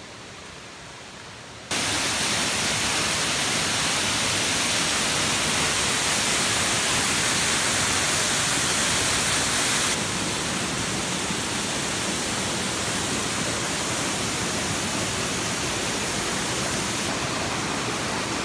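Steady rush of Glen Ellis Falls, a tall waterfall running strong after heavy overnight rain. Faint at first, it comes in loud and sudden about two seconds in and drops a little about ten seconds in.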